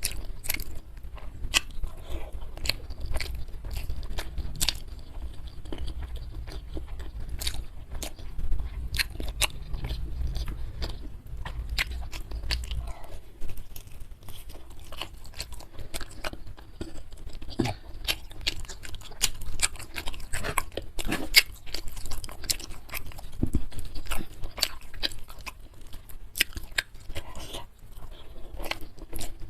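A person eating close to the microphone: chewing and crunching food, with many short sharp clicks and crunches throughout. A low hum underneath stops abruptly about 13 seconds in.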